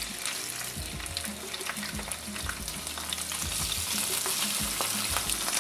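White fish fillets frying skin side down in hot olive oil in a frying pan: a steady sizzle with many small crackling pops of spitting oil.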